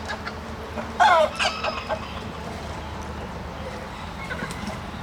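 Chicken calling: one loud call about a second in, then a few shorter calls, over a steady low hum.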